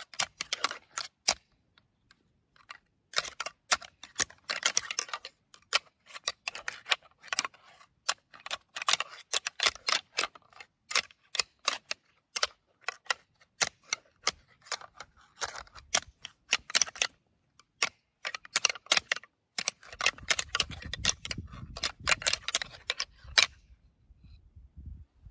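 Irregular clusters of sharp clicks and crackles, with short quiet gaps between them; a low rumble joins them for the last few seconds.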